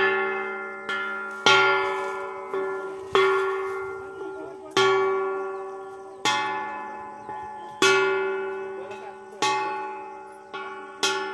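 Hand-held metal gong struck with a stick about every one and a half seconds, with a few lighter strokes in between. Each stroke rings out with several steady tones and fades away slowly before the next.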